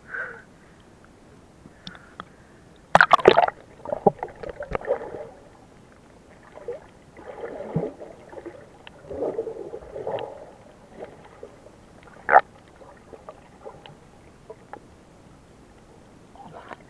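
Water splashing and bubbling, muffled as heard by a camera underwater and at the surface, in irregular surges with a loud splash about three seconds in and a short sharp burst near the twelve-second mark.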